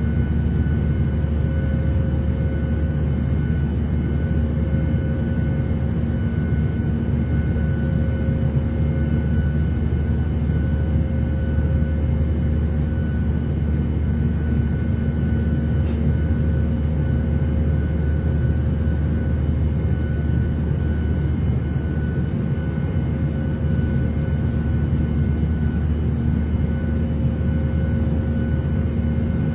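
Airliner cabin noise: a steady low rumble of engines and airflow with a faint steady hum of several tones on top, unchanging throughout, with one faint click about halfway through.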